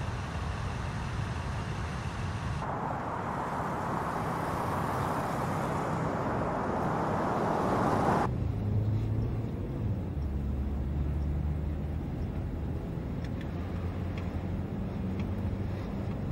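A car driving: tyre and road noise that swells for several seconds, then cuts off suddenly about eight seconds in to the low, steady rumble heard inside the car's cabin.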